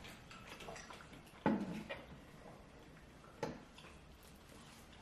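Quiet eating and food-handling sounds at a meal table, with two sudden knocks, the louder about a second and a half in and another about two seconds later.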